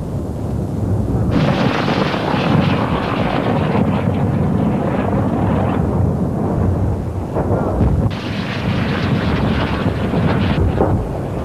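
Artillery shelling heard through a camcorder microphone: a continuous heavy rumble, with sharp shell blasts about seven seconds in and again near the end.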